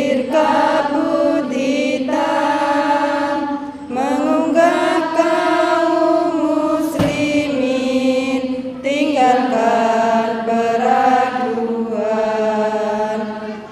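A group of voices chanting a recitation together in unison, in long drawn-out phrases with short breaks between them.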